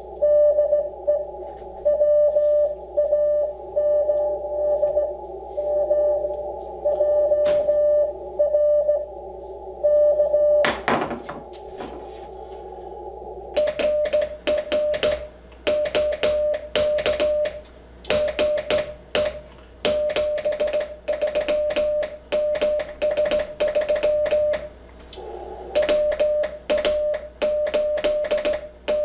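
Morse code on an Icom IC-7300 transceiver. For the first ten seconds or so a received CW signal comes through as a keyed mid-pitched beep over receiver hiss. From about thirteen seconds in, the operator sends on a straight key: the radio's sidetone beeps in step with the clicking of the key's lever, each dah held longer than a dit.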